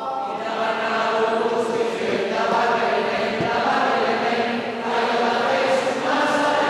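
A mixed group of men and women singing a Basque Christmas carol (marijesiak) together, unaccompanied, in a church, in long held phrases.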